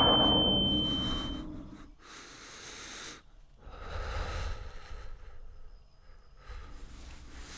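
A loud rushing roar with a steady high ringing tone fades away over the first two seconds, the ringing cutting off suddenly. A man then breathes heavily, with a long deep breath about four seconds in.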